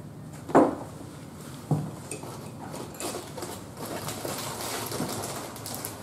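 Handling noises on a workbench: two sharp knocks, then from about halfway a patter of light clinks and rustling as a ceramic mug is set down among the parts.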